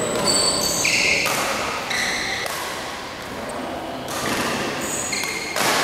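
Players' shoes squeaking on a badminton court: many short, high squeaks in quick succession, with a sharp hit near the end.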